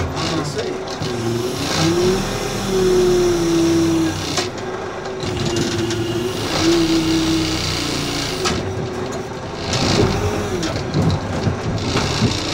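Backhoe loader's diesel engine running under load while the machine works through a stream. Its pitch dips and recovers several times as the engine is pulled down and revved back up.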